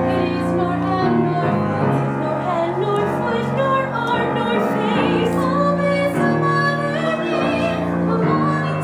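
A mixed group of voices singing a musical-theatre number together, holding long notes with vibrato.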